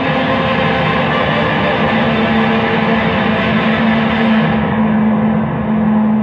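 Electric guitar run through a board of effects pedals, making a dense, sustained noise drone of many held tones. A steady low tone comes up about two seconds in, and the treble falls away about two-thirds of the way through.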